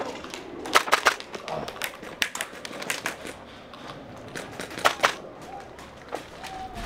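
Airsoft guns firing in scattered sharp snaps: a quick cluster about a second in, single shots over the next two seconds, and a close pair around five seconds. Faint distant voices can be heard underneath.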